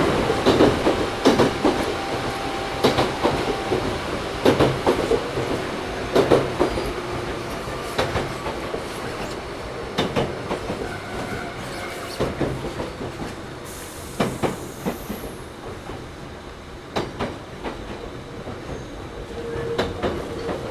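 Interior running sound of a Toyohashi Railway 1800 series motor car (ex-Tokyu 7200 series, resistance control) under way: steady rumble with irregular sharp clacks of the wheels over rail joints. The noise eases off in the second half, with the air conditioning running.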